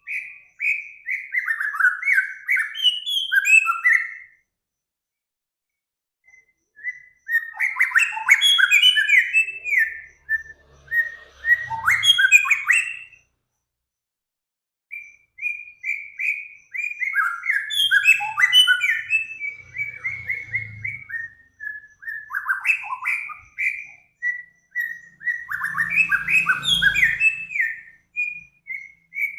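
Songbird singing in bouts of fast, varied chirps and whistled notes, with a few seconds of silence between bouts.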